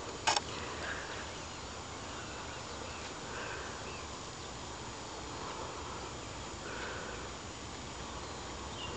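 Faint, steady outdoor background noise with soft, indistinct sounds now and then.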